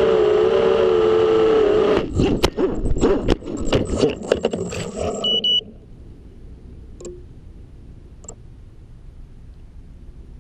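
FPV quadcopter's motors whining steadily, then about two seconds in it crashes: propellers chopping into grass and the frame tumbling in a burst of hits and scrapes for a few seconds. The motors then cut out suddenly, leaving a low hiss with a few faint ticks.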